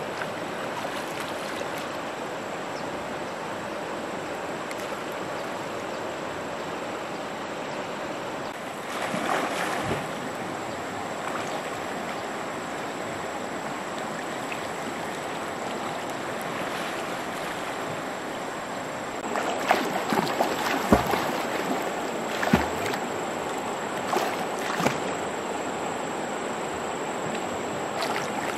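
Steady rush of stream water, with a burst of splashing about 9 seconds in and a run of splashes and sharp slaps between about 19 and 25 seconds in, from someone swimming and wading in the stream.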